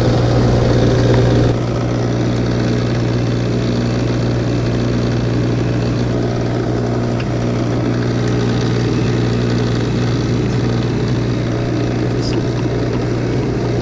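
An engine running steadily at one speed, giving a constant low hum. It drops a little in level about a second and a half in.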